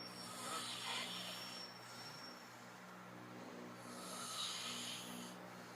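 A sleeping person snoring: two long, hissy breaths, about three seconds apart.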